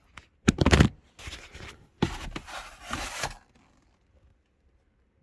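Packaging rustling and scraping as items are handled and pulled out of a box, in a few loud bursts lasting about three seconds, then stopping.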